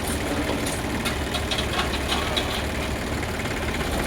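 JCB backhoe loader's diesel engine running steadily at low revs, with a few short metallic ticks partway through.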